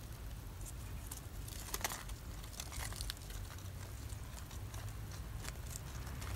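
Faint rustling and light ticking of artificial flower petals and leaves brushing together as a hairpin is turned in the fingers, over a low steady hum. The small ticks cluster between about one and a half and three seconds in, and again near the end.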